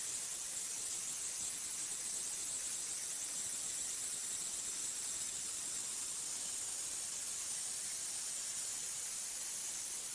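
Simulated Nano 2000 metallographic grinder-polisher running, with a metal specimen held on its spinning abrasive wheel: a steady, high-pitched hiss.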